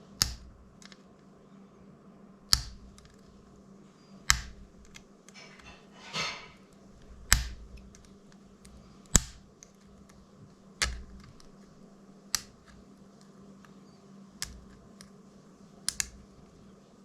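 Small hand tools clicking and tapping against the plastic of a DJI Mini 2 drone's frame as hot glue is picked out: about ten sharp clicks, roughly one every two seconds, with a short scrape about six seconds in.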